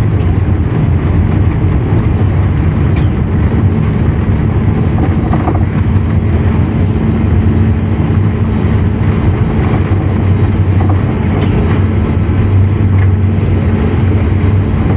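Jet airliner heard from inside the cabin after landing, rolling on the ground: a loud, steady low rumble of engines and wheels, with a steady hum joining in about a second and a half in.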